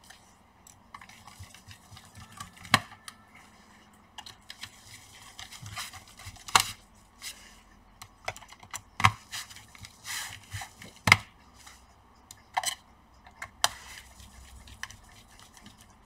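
Precision screwdriver tightening the screws of a laptop's plastic bottom cover: irregular sharp clicks and taps of the tool bit and hands against the case, a few louder snaps among them.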